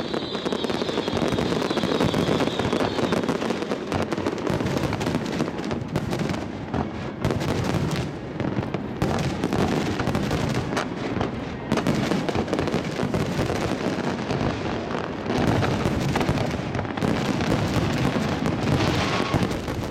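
Aerial fireworks going off in a dense, continuous barrage of bursts and crackles, with a thin high whistle in the first few seconds.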